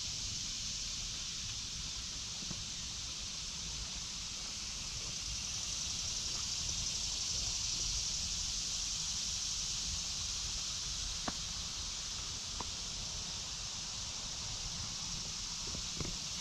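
Chorus of cicadas (the 'locusts' of the woods): a steady high buzz that swells slightly midway, over a low rumble, with a couple of sharp snaps later on.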